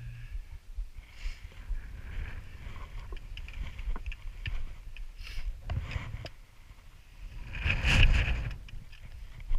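Wind buffeting the microphone in a low rumble, with soft scuffing steps about once a second on the rocky path. A louder rush comes about eight seconds in.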